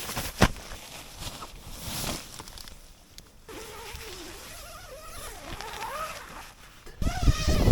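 Nylon camping gear being handled: rustling and clicks, then wavering squeaks of fabric rubbing for a few seconds. Near the end a loud low rumble hits the microphone.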